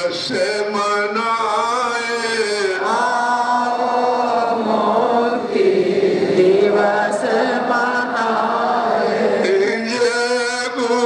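A man chanting devotional verses in long, drawn-out notes with a slight waver, the pitch dropping a little about three seconds in and holding low through the middle before rising again near the end.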